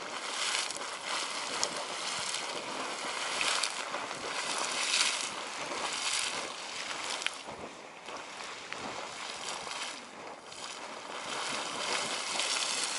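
Geyser erupting, its water splashing and rushing in irregular surges.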